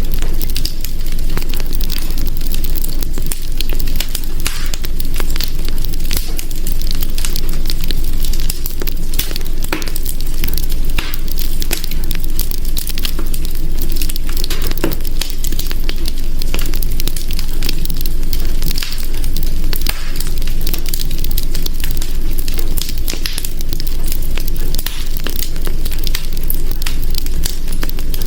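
Fire crackling in a hearth: a steady low rumble under many small, sharp pops and snaps.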